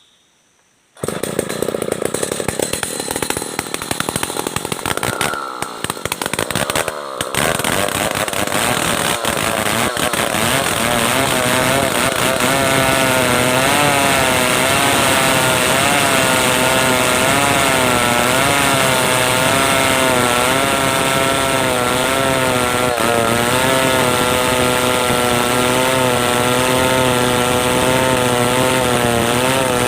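Stihl 070 two-stroke chainsaw cutting through merbau hardwood. The sound comes in suddenly about a second in and is uneven for several seconds, then settles into a loud, steady run whose pitch wavers up and down as the chain works through the wood.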